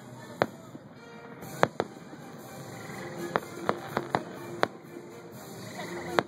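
Aerial fireworks shells bursting overhead: about eight sharp bangs at irregular spacing, the loudest about a second and a half in.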